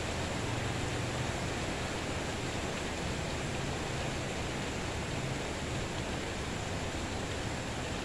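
Steady rain falling, a constant even hiss with no separate drops standing out.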